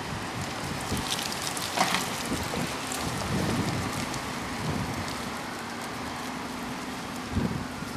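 Optare Versa single-deck bus driving slowly towards and past, its engine hum building steadily over the second half, under a constant hiss. A couple of brief knocks, one about two seconds in and one near the end.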